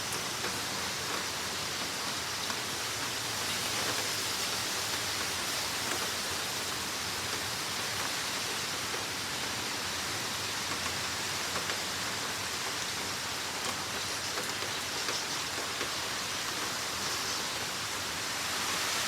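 Hurricane rain and wind making a steady rushing hiss, with no strong gust.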